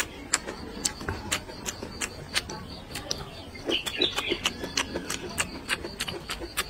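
Close-miked mouth sounds of a person chewing food, a string of sharp wet smacks and clicks about two to three a second.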